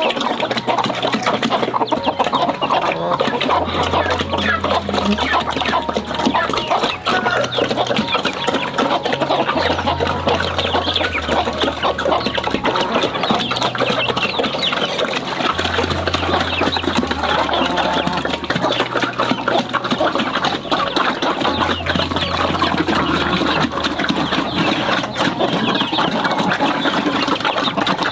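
A flock of chickens clucking continuously, with a low note pattern repeating about every six seconds underneath.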